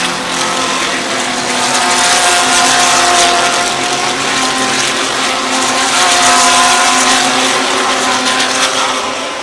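GT3 race car engines running hard at racing speed, the sound swelling twice as cars go by.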